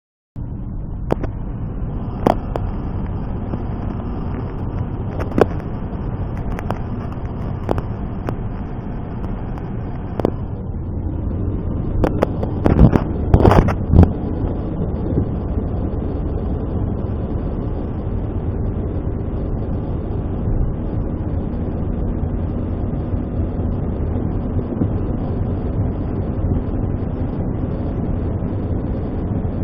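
Steady low rumble of a car driving on the highway, with scattered sharp clicks and a cluster of louder knocks about twelve to fourteen seconds in.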